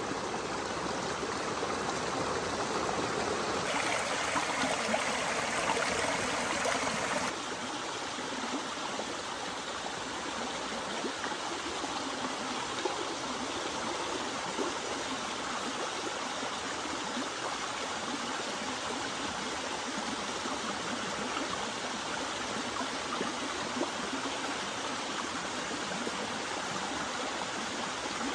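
Small forest stream splashing down a rocky cascade, a steady rush of running water that is louder for a few seconds about four seconds in.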